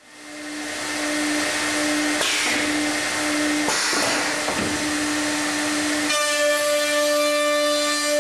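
Two high-speed router spindles on a CNC stair router spinning up to a steady whine over a rush of air, running at about 18,000 rpm. About six seconds in the whine grows harsher as the router head comes down to the wooden stringer.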